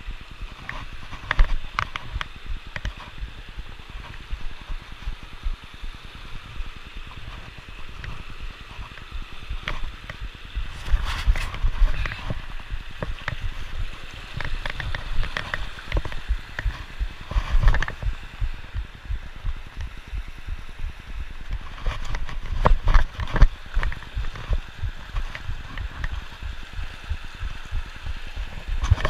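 Mountain creek rushing over rocks, under low rumbling and scattered knocks from a body-worn camera being jostled while its wearer climbs down the boulders; the knocking and rumble swell about a third, halfway and three quarters of the way in.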